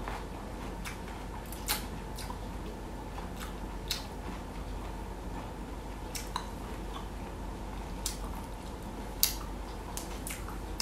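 A person chewing boiled bamboo shoot, with about half a dozen short, sharp mouth clicks and smacks scattered through, the loudest about nine seconds in, over a steady low hum.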